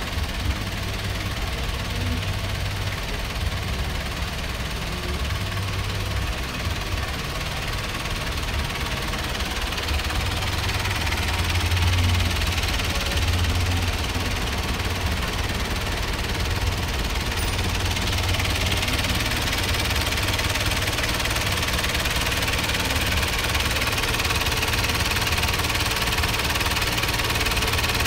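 Pickup truck engine idling steadily with its hood open.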